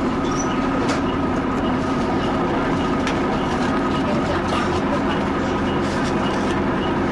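Leyland L10 diesel engine of a double-decker bus running steadily at an even pitch, with a faint tick about twice a second.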